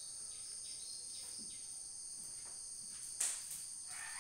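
Steady high-pitched insect chorus, typical of crickets, with one brief sharp louder sound about three seconds in.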